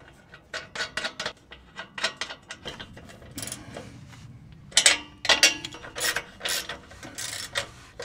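Ratcheting wrench clicking in short runs of quick clicks as nuts are run down onto the bolts of an exhaust flange joint.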